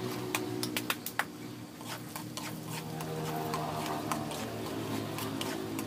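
Garlic frying in hot oil in a metal wok, with sharp crackles and the clink and scrape of a metal ladle stirring through it. The clicks come thickest in the first second or so, over a steady low hum.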